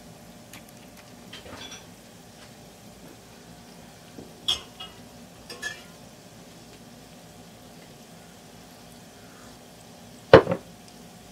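Samosas deep-frying in hot oil, a low steady bubbling. A few short sharp clinks break in, with a louder double knock, the loudest sound, about ten seconds in.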